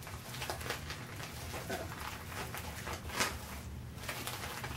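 Rustles and small clicks of packaging being handled on a table, irregular, with the loudest rustle about three seconds in, over a low steady room hum.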